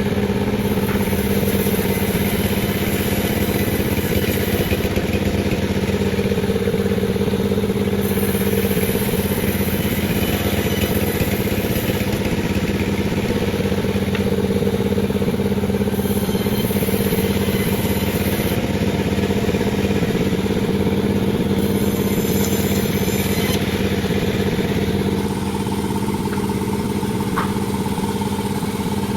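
Panda36 chainsaw running steadily at high revs while sawing a durian log, its engine note holding constant, easing slightly quieter near the end.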